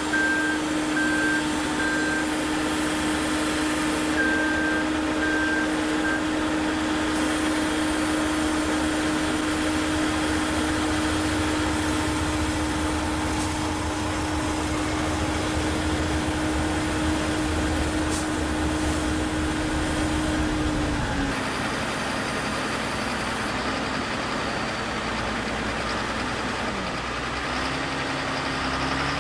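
Heavy construction machinery with its engine running steadily under a constant hum, and a back-up alarm beeping in the first few seconds. The sound changes abruptly about two-thirds of the way through, with the engine continuing.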